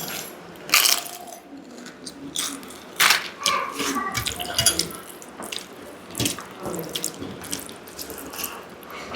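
Close-miked eating sounds: wet squelching and smacking of dal and rice being mixed and eaten, with several sharp clicks a second or so apart.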